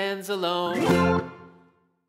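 Background music whose notes stop about a second in and fade out to silence.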